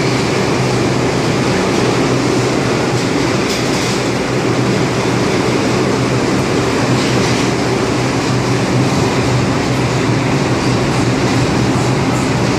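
R142 New York City subway train standing at the platform, its equipment giving a steady hum amid loud, even station noise.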